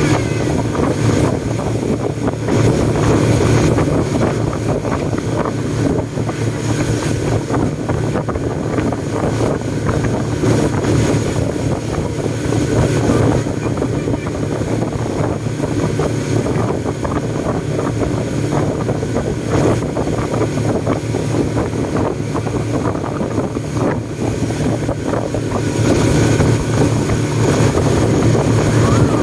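Speedboat under way at speed: a steady engine drone with water rushing along the hull and wind buffeting the microphone.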